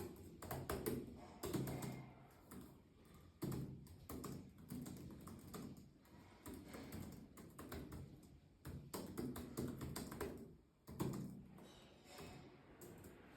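Fast typing on a computer keyboard: quick runs of key clicks in flurries, with brief pauses between them.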